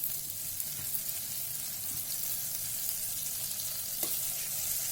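Butter melting and sizzling in a hot pot: a steady crackling hiss with a few faint ticks, growing slightly louder toward the end.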